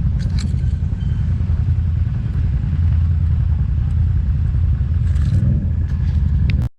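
ATV engine running steadily as the quad rides off-road, with a few light rattles from the machine. The sound cuts off suddenly near the end.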